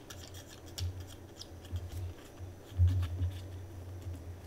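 Small sharp clicks and taps of wooden kit pieces, plastic spacers and metal bolts and washers being handled and fitted together, with a few dull bumps against the table, the loudest a little under three seconds in.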